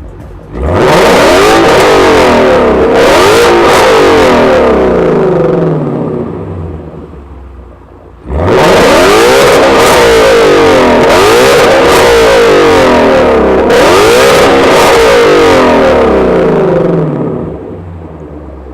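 Ford Mustang Shelby GT350's 5.2-litre flat-plane-crank V8 exhaust under hard acceleration, twice. Each run opens with a sharp climb in revs, then pitch sweeps up and drops back several times, as with gear changes, before the sound fades away.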